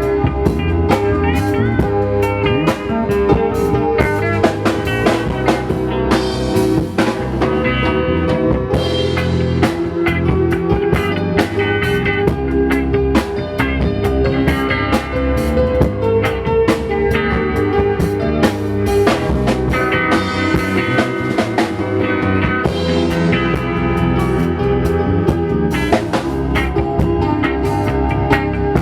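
Live band playing an instrumental groove: drum kit with snare and rimshot hits, electric guitar and bass, loud and continuous.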